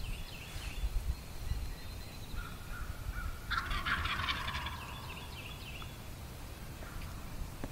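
A wild turkey gobbler gobbles once, about three and a half seconds in, a rapid rattling call of about a second and a half that drops in pitch as it ends.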